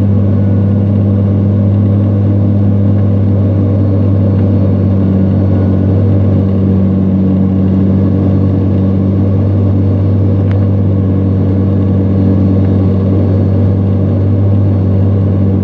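Iveco truck's diesel engine running steadily under load as it works through sand, droning at a constant pitch.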